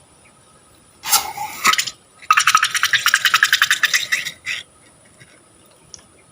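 Rapid rhythmic scraping, about ten strokes a second for two seconds, after a shorter rougher scrape about a second in.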